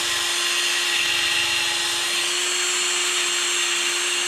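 Cordless drill spinning a wire wheel brush against a corroded steel door pivot pin, scrubbing off rust and grime. A steady motor whine runs under the hiss of the wire bristles on the metal.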